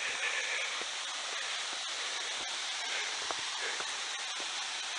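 Steady rushing of a mountain waterfall, Gibbs Falls.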